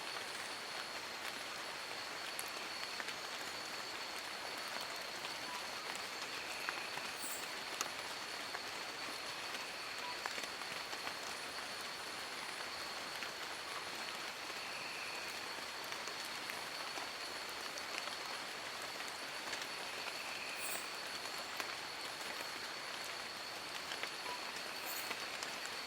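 Steady rain falling on forest leaves, with many small drips pattering through an even hiss. A thin high tone holds steady throughout, and a few brief high chirps stand out.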